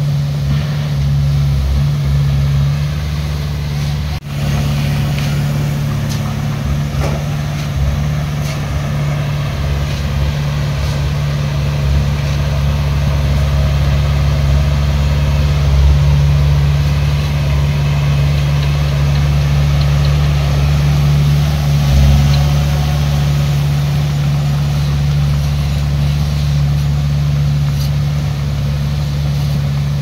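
Diesel engine of heavy construction equipment running steadily, with a deep, even engine note. There is a brief break in the sound about four seconds in.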